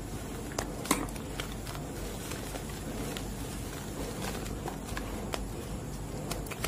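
Hands crushing and crumbling gym chalk blocks in a bowl of chalk powder: a steady soft crunching and rustle of powder, broken by sharp cracks of chunks snapping, the loudest about a second in.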